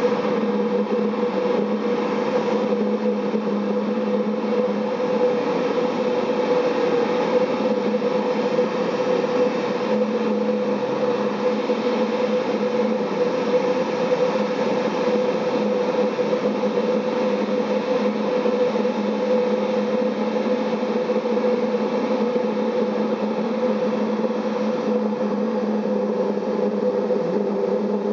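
Homemade valved pulse jet engine running steadily, firing only while compressed air is blown into it rather than sustaining itself, a shortfall the builder puts down to a combustion chamber that feels too small.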